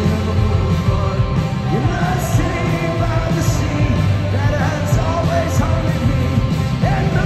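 Live rock band playing through a large PA, electric guitars, bass and drums with a male lead vocal, heard from within the audience.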